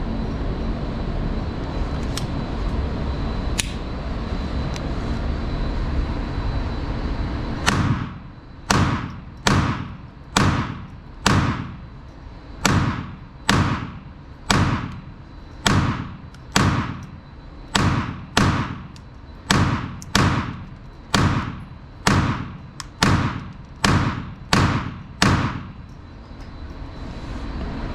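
Sig Sauer P322 .22LR pistol firing about twenty shots, a bit under one a second, starting about eight seconds in, each with a short ringing echo. The magazine runs empty without a stoppage.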